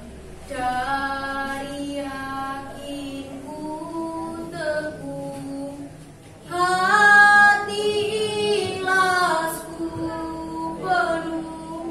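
A teenage girl singing unaccompanied in long, drawn-out notes as part of a poetry recitation. About six and a half seconds in her voice jumps louder and higher.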